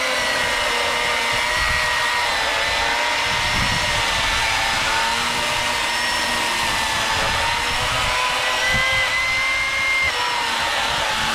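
Milwaukee M18 Fuel cordless chainsaw running under load while cutting through a log. It gives a steady high whine of motor and chain, and the pitch sags slightly and recovers a few times as the saw bites.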